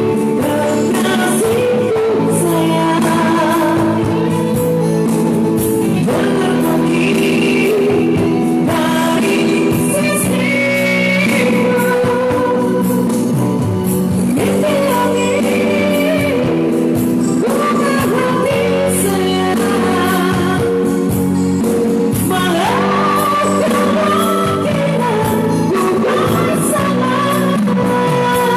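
A man singing an old Indonesian pop song in a high voice over steady band accompaniment.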